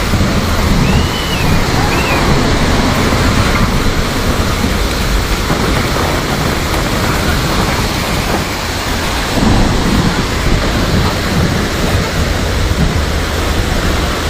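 Floodwater rushing down a swollen river channel, a loud, steady rush of churning water.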